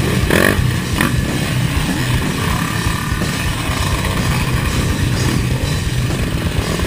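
Rock music with a steady beat over the running engines of dirt bikes riding past.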